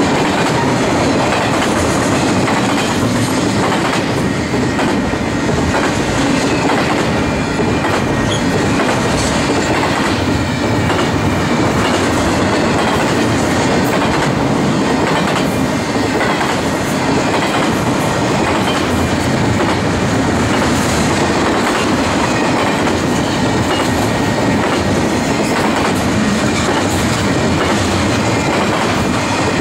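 Loaded double-stack container well cars of a freight train rolling past: a steady, loud rumble of steel wheels on the rails, with repeated clacks as the wheels cross rail joints.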